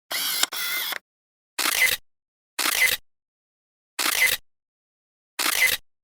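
Six short, crisp clacks: two back to back, then single ones a second to a second and a half apart, each cut off into dead silence.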